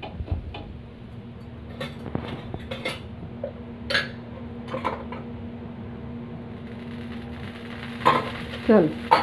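A metal spatula knocking and scraping against an iron tawa while a horse gram flatbread is turned and pressed on it: scattered clinks, with a louder clatter near the end, over a steady low hum.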